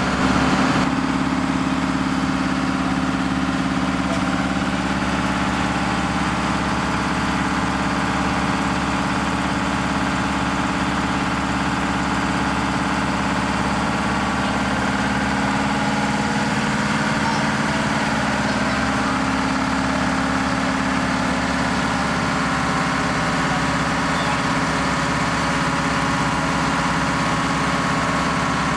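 Hahn fire engine's engine running steadily under pump load, drafting water from a pond through its hard suction hose to supply a ground monitor's stream.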